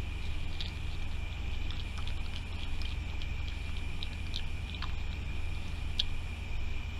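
Raccoon eating at close range: scattered small clicks and smacks of chewing and handling food, the sharpest about six seconds in. Underneath runs a steady high-pitched tone and a low rumble.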